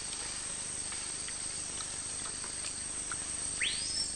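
Forest ambience: a steady high insect drone over faint hiss with a few soft ticks, and near the end a bird call that sweeps up in pitch and falls back.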